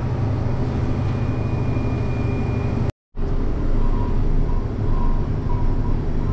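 Farm tractor's diesel engine running steadily. The sound cuts out completely for a moment about three seconds in, at an edit, then the same engine drone resumes.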